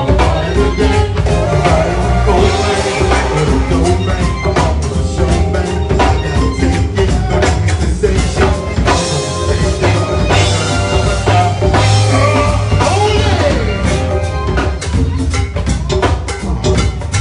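Live go-go band playing: drum kit and percussion hitting a dense, steady groove over a strong bass line, with other instruments on top.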